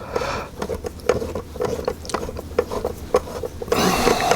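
Ratchet of a hand tool clicking steadily, about five clicks a second, as a small screw is driven into a plastic housing; a short rustling scrape comes near the end.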